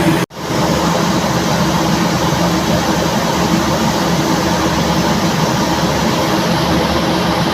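Steady drone of a ferry's engines under a constant rushing noise, cut off for a split second about a third of a second in before carrying on unchanged.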